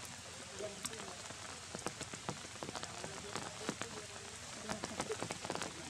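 Rain falling on wet ground and leaves: a steady hiss dotted with many sharp, irregular drip ticks.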